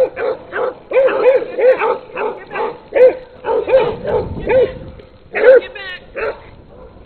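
A dog barking over and over in short barks, about two or three a second, thinning out in the last second or two.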